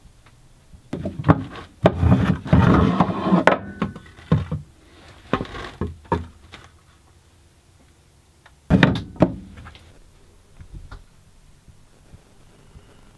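Wooden cabin fittings being handled: a wooden shelf insert lifted and moved, giving clusters of wood-on-wood knocks and clunks, first about a second in, again around five to six seconds and once more near nine seconds.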